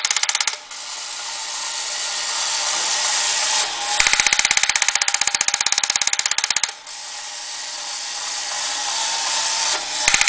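Vintage tin toy tank's mechanism running. It switches between a rapid, even clicking rattle of gears and tracks and a smoother whirring noise, each lasting about three seconds, with the change happening twice.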